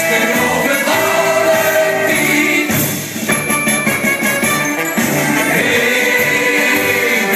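A group of singers singing together into microphones over loud amplified instrumental accompaniment.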